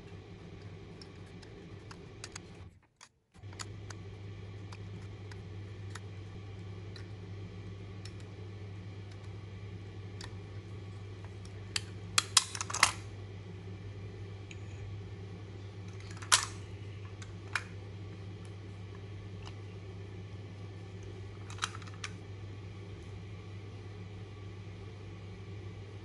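Small clicks of the combination dials on a key safe lockbox being rolled, with a cluster of louder clacks about 12 seconds in as the box is opened, and more single sharp clacks later as it is handled and shut. A steady low hum runs underneath.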